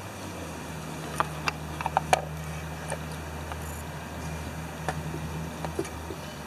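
Sharp clicks and taps of the plastic distributor cap and rotor being fitted back onto a tractor's ignition distributor and pressed into place, the loudest about two seconds in and a few more later. A low steady hum runs underneath.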